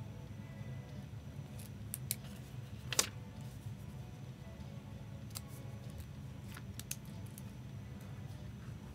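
Scattered small sharp clicks of handling, the loudest about three seconds in, over a low steady hum.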